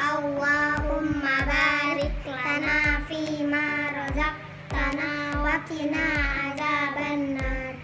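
Child's voice singing a song over a backing track with a steady beat.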